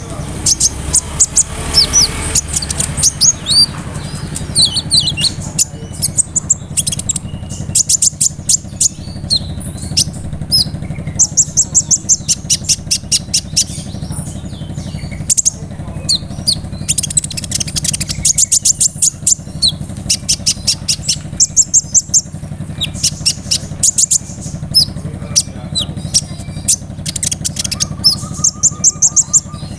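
A sunbird (kolibri ninja) singing loudly: runs of rapid, rolling high trills and quick slurred high notes, repeated in bursts with short pauses. A steady low hum runs underneath.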